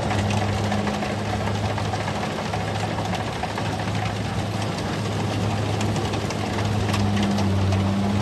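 Kubota DC-70G rice combine harvester running steadily: a constant low diesel engine hum under a dense, even clatter of machinery.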